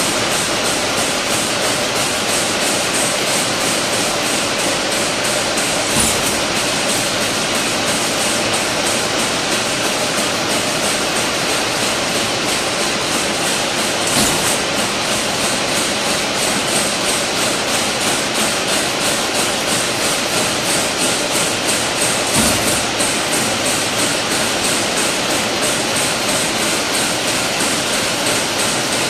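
Fully automatic chain link fence weaving machine running, a fast steady metallic clatter of its weaving mechanism, with a louder knock about every eight seconds.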